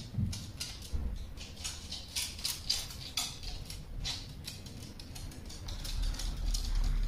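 Irregular light clicks and ticks, several a second, over a faint low hum.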